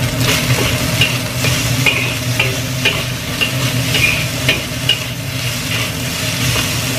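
Metal spatula scraping and stirring fried rice in a wok, in short irregular strokes about one or two a second, over the sizzle of frying and a steady low hum.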